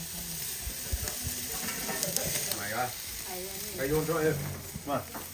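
Sausages and chicken sizzling on a charcoal barbecue grill, a steady hiss, with people talking faintly in the background for the last few seconds.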